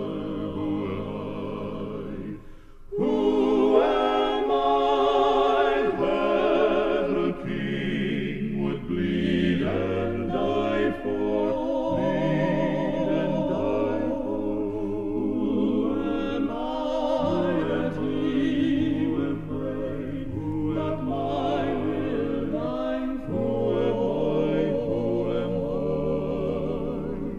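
Male gospel quartet of two tenors, baritone and bass singing sustained close harmony with vibrato. The sound dips briefly about two and a half seconds in, then the voices come back louder.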